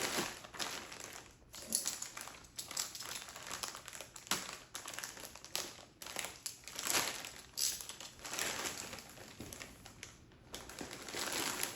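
A stiff plastic bag crinkling and rustling in irregular bursts as it is handled and opened to get a backpack out.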